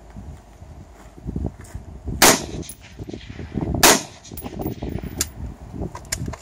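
Two rifle shots about a second and a half apart, with lighter clicks and knocks between and after them.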